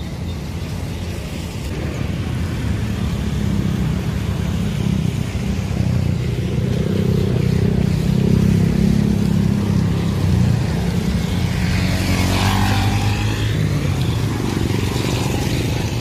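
A motor vehicle's engine running close by on the road, growing louder over the first half and staying loud.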